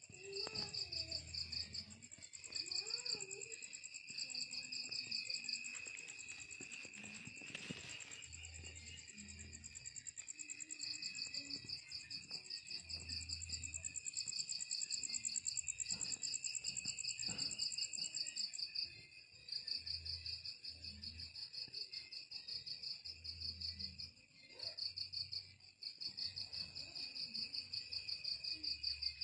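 Night insects, crickets, chirping together. One trills in rapid pulsed stretches broken by short pauses, while others keep up steady high trills underneath.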